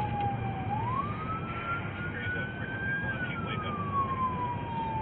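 Police siren wailing in a slow rise and fall: it climbs from its low point about a second in to a peak around three seconds, then slides back down. It is heard from inside a moving car over the low rumble of engine and road noise.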